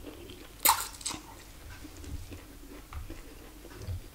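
Close-miked eating of bakso noodle soup: noodles drawn into the mouth and chewed, with one short, sharp, loud mouth sound less than a second in and quieter smacks and clicks after it.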